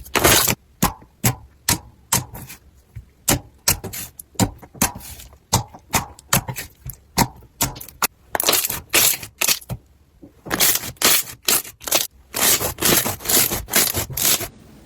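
Crunchy slime being pressed and squeezed, giving a quick irregular series of sharp crackles and pops, packed closer together in the second half.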